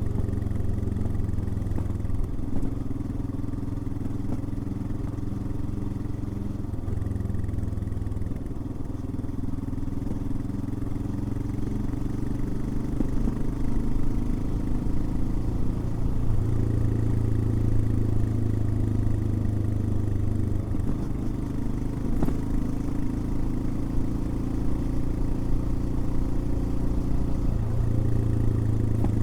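Royal Enfield Himalayan single-cylinder engine running while the motorcycle is ridden. Its note steps up and down several times as engine speed changes.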